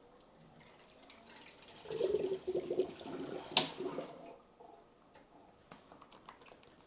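Liquid coolant poured into a PC water-cooling loop's reservoir, gurgling for about two seconds, with a sharp click part way through, then a few faint drips.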